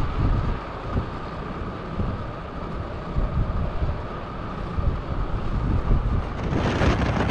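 Storm wind gusting hard against the microphone, a continuous low buffeting rumble under a rushing hiss, with a louder rush near the end.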